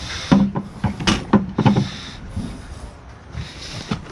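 A run of knocks and clunks as a wooden mantel clock is handled and set down and items are rummaged in a plastic storage tote. The knocks come thick in the first two seconds, then grow sparser and quieter.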